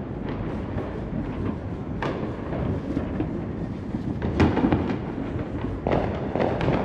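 Many fireworks going off at a distance, a constant rumble of overlapping bangs with louder booms about two seconds in, again at about four and a half seconds, and twice near the end.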